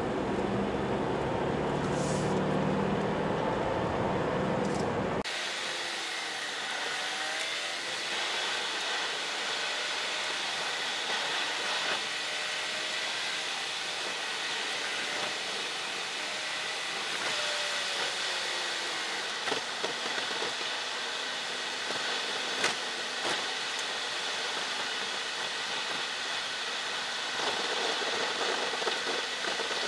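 Steady noise of a car on the move: a low rumble that cuts abruptly about five seconds in to a thinner hiss, with faint sliding tones and a few sharp clicks.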